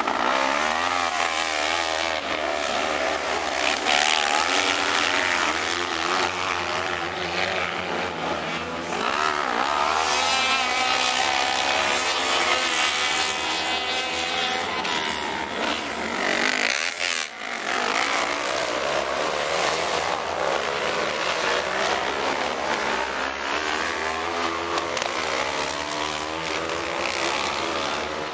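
Several 500 cc kart cross buggies racing on a dirt circuit, their engines revving up and easing off through the bends, with a brief dip about seventeen seconds in.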